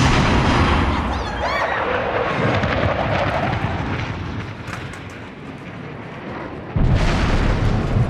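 Two loud booming blasts: one at the start and another about seven seconds in, each with a long rumbling fade.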